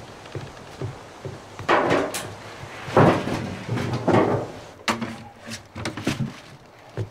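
A scuffle inside a wooden shed: three heavy crashes and thuds about two, three and four seconds in, followed by a quicker run of knocks and clatter.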